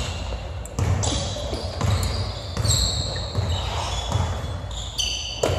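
Basketball being dribbled on a hardwood gym floor, bouncing steadily, with short high squeaks over it.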